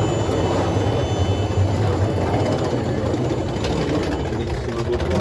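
Steady low drone of a passenger plane's engines with rushing air noise, heard inside the cabin.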